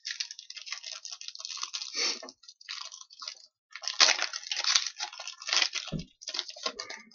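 Crinkling and rustling of trading card foil wrappers and cards being handled, in irregular crackly clusters, with a soft thump about six seconds in.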